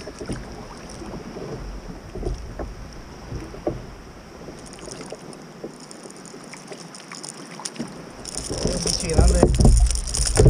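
Kayak moving through water: water lapping and trickling against the hull, with small knocks and clicks. About eight seconds in, a much louder rushing rumble sets in.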